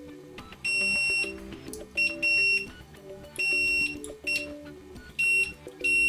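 Fluke digital multimeter's continuity beeper giving about seven high-pitched beeps of uneven length as the probe is touched on and off the cell terminals of a lithium-ion battery pack.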